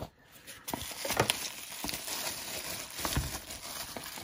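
Rustling and crinkling as a watch box is opened and a watch is lifted out of its plastic wrapping, with a few light clicks and knocks of the box.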